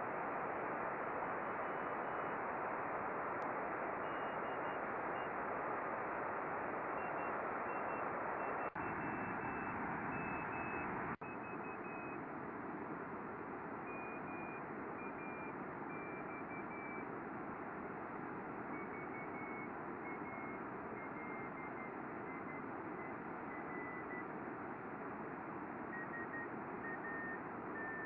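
Amateur radio receiver on the MAX Valier satellite's CW beacon: steady static hiss with faint Morse code beeps keying out "DE II3MV MAX VALIER SAT". The beep pitch falls slowly throughout, the Doppler shift of the passing satellite.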